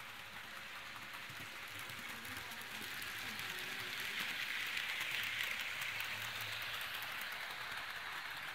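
HO-scale model train of hopper wagons rolling along the track, a steady rattle of small wheels on rail that grows louder as the wagons pass close, loudest about five seconds in, then eases off a little.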